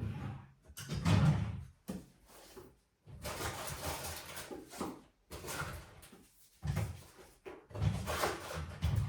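Household tidying noises: irregular bumps, knocks and rustling as objects are handled and set down, in uneven bursts with short silent gaps between. No vacuum cleaner is running.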